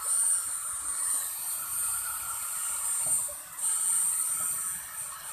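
Handheld hair dryer blowing at a wet cat: a steady rushing hiss with a high whine. The sound dips briefly about three and a half seconds in.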